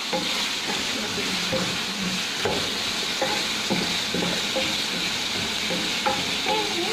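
Sliced onions sizzling in hot oil in an aluminium wok-style pan, stirred with a wooden spoon that scrapes and knocks against the pan every second or so.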